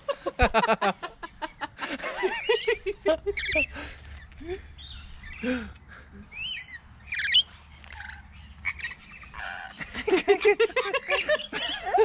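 Rainbow lorikeets calling: scattered shrill chirps and screeches, with a few sharp high chirps about six to seven seconds in and denser chatter near the start and end.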